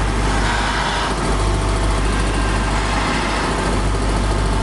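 CNC brake-lining drilling machine running, a loud steady mechanical noise over a constant low hum.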